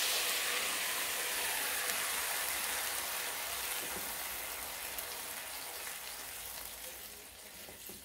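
Loud sizzling as cold, thick curd hits a hot pan of fried onion and spice masala, fading steadily as the pan cools under the added yogurt.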